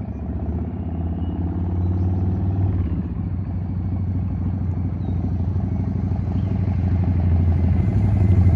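Harley-Davidson Softail's V-twin engine running as the motorcycle rides up, getting louder as it approaches. The engine speed rises briefly and drops back about two and a half seconds in.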